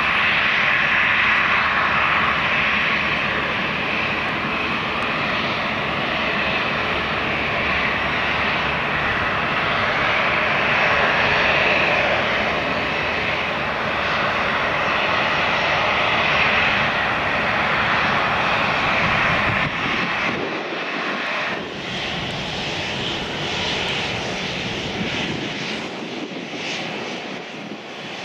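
Boeing 737 jet engines running at taxi power, a loud steady whine and rumble. About twenty seconds in the sound cuts to the quieter, thinner jet noise of a business jet on the runway.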